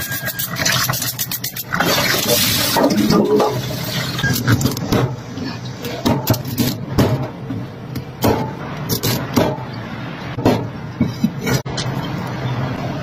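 Water splashing in a stainless steel sink as crab pieces are rinsed, then a cleaver chopping crab on a wooden board: a run of sharp knocks roughly a second apart.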